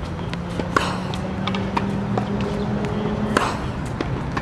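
Tennis ball struck by a racket on groundstrokes: two sharp pops about two and a half seconds apart, with fainter knocks of ball bounces and footsteps between them, over a steady low hum.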